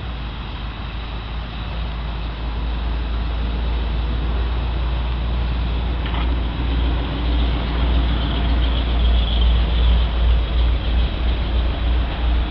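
Steady outdoor rumble with a hiss over it, growing stronger and unsteady, like gusts, in the second half; one brief click about six seconds in.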